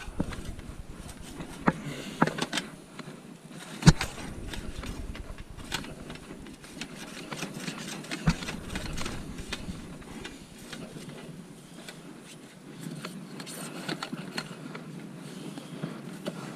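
Scraping and rubbing inside a PVC furnace flue pipe as bird debris that blocked the exhaust is cleared out, with scattered clicks and two sharp knocks, about four and eight seconds in.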